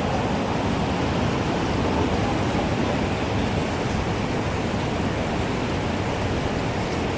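Wind blowing steadily: an even rushing noise, with no chime strikes standing out.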